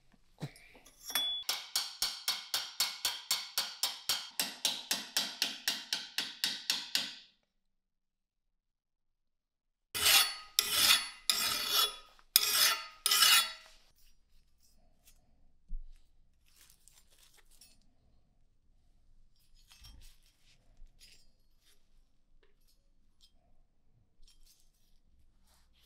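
A hand file rasping across the rust-pitted steel of a Carcano rifle's trigger guard clamped in a vise. About twenty quick, even strokes run at nearly four a second and end abruptly. After a few seconds of silence come four or five slower, louder strokes, then only faint clicks of handling.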